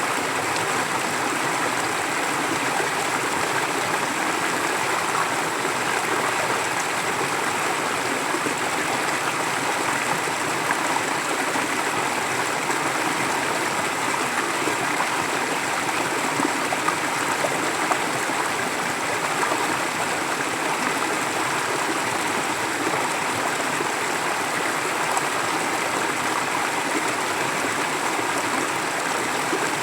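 Forest stream flowing steadily over rocks, with gentle trickling and gurgling.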